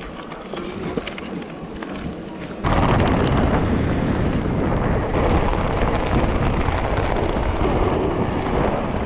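Wind buffeting the microphone of a camera riding along on a mountain bike descent, with a few clicks and rattles at first. About two and a half seconds in it jumps suddenly to a loud, deep rumbling roar that stays to the end.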